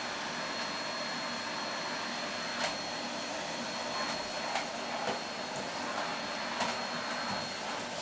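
Steady whir of an electric motor-driven appliance, with a thin high whine that stops near the end and a few light clicks over it.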